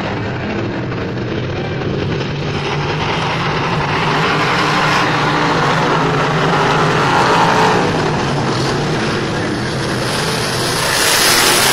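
A field of dirt-track stock cars running laps, their engines droning steadily together. The sound grows louder near the end.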